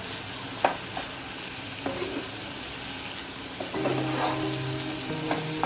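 A metal spatula stirs and scrapes bitter gourd sabzi around a kadhai, knocking against the pan a few times, over a soft sizzle of the cooking vegetables.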